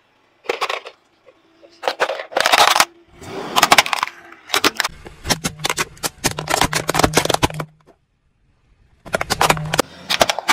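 Hard plastic toys and containers cracking and crunching under a slowly rolling car tyre, in several separate bursts of sharp snaps with brief silent gaps between them.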